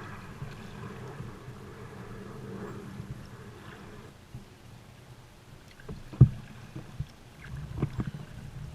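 Kayak sounds: a steady low rushing for about four seconds, then a few knocks on the boat, the loudest a sharp knock about six seconds in.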